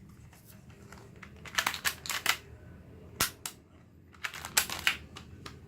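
Tokyo Marui M92 spring airsoft pistol being handled and its slide racked to cock it for the next shot: plastic clicks and clacks in two quick clusters, with one sharp single snap in between, a little after three seconds in.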